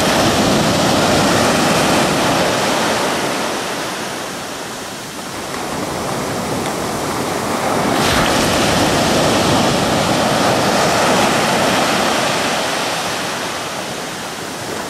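Small ocean waves washing up on a beach: a steady rushing that fades about five seconds in and swells again a few seconds later.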